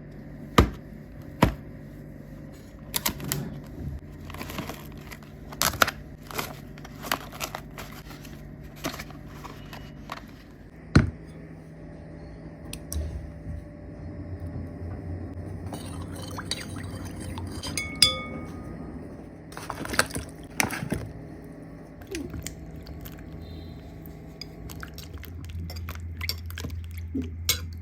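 Kitchen utensils and vessels being handled while cooking: irregular clinks, taps and knocks of spoons and pans, one clink ringing on briefly, over a steady low hum.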